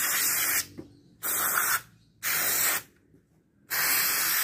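Aerosol can of carburettor cleaner sprayed onto a throttle body in short hissing bursts: four bursts of about half a second each, with brief silent gaps between them, the last running on past the end.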